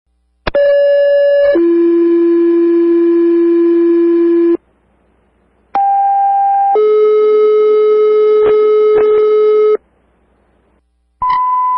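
Two-tone sequential paging tones over fire dispatch radio: a one-second higher tone, then a three-second lower tone, sent twice with a different pitch pair each time. A steady higher beep starts near the end.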